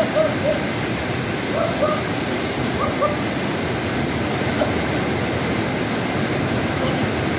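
River water rushing over rocks, a steady, even noise. A few brief faint calls sound in the first three seconds.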